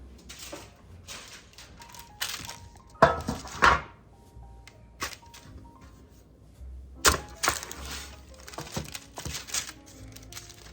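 Soft background music with a light steady melody, under kitchen handling noises: a series of sharp clatters and knocks, the loudest about three seconds in and again about seven seconds in.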